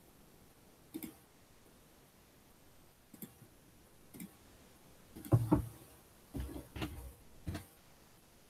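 Faint clicks of a computer mouse and keyboard: a few single clicks, then quicker runs of taps in the second half.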